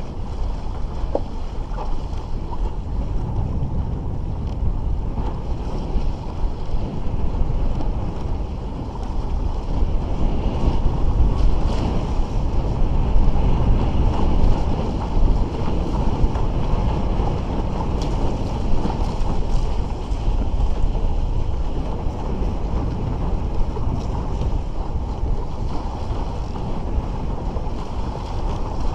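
Wind buffeting the microphone over water rushing and splashing against the hull of a raceboard windsurfer sailing through chop. A steady rushing noise that grows somewhat louder in the middle stretch.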